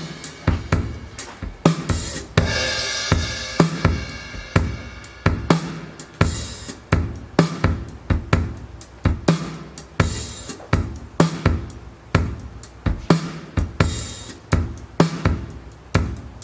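Drum kit playing a steady beat of kick, snare and hi-hat, with a cymbal crash every few seconds, played back as a demo through Cambridge Audio hi-fi equipment.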